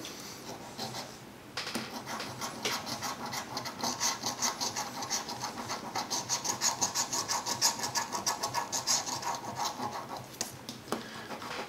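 A coin scraping the latex coating off a scratch-off lottery ticket, in rapid back-and-forth strokes that start about a second and a half in and keep going almost to the end.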